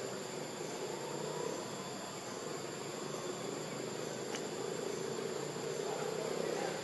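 Insects droning steadily with a thin high-pitched note, over a lower hum that swells a little about five seconds in.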